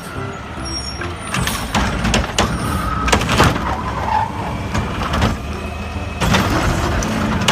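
Plastic toy vehicles knocking and clattering as they are handled and loaded, a string of sharp knocks starting about a second in over a steady low hum.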